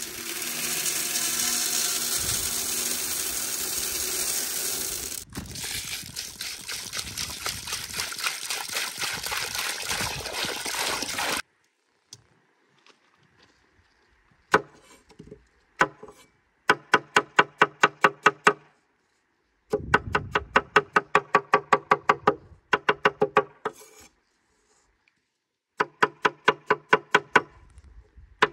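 Dried yellow split peas poured into a stainless steel pan, a dense hiss of grains that thins into a patter of single grains and stops after about eleven seconds. After a short pause comes a knife chopping onions on a thick wooden board, in quick runs of about six strokes a second with breaks between them.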